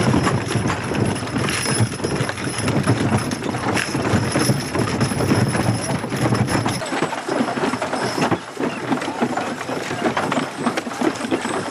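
Hooves of a harness horse clip-clopping on grass as it pulls a horse-drawn cart, mixed with the steady rattle of the moving vehicle.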